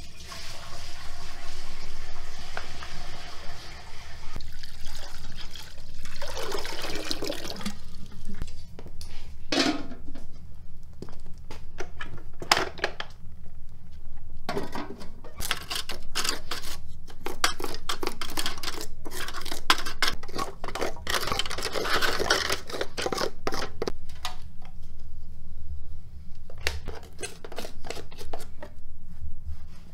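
Water poured from an aluminium pot into another aluminium pot, splashing steadily for the first few seconds. Then irregular metal clanks and scrapes as a galvanized-bucket wood stove is handled and its ash raked out onto a shovel.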